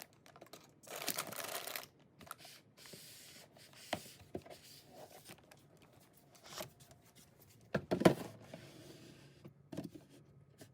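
Food packaging being handled and opened: a tearing rustle about a second in, softer crinkling after it, then several sharp knocks, the loudest about eight seconds in.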